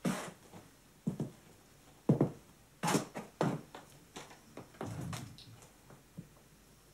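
A series of irregular knocks and thuds, about seven in six seconds, the loudest a little after two and three seconds in.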